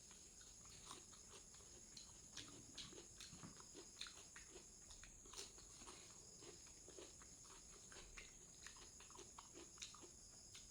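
Faint chewing and eating sounds: many soft, irregular mouth clicks, a few a second.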